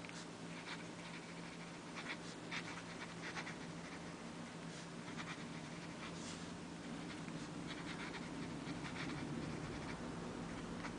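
Lamy Safari fountain pen's extra-fine black nib writing on notepad paper: faint, irregular strokes of the nib gliding across the page. Under the strokes runs a steady low hum.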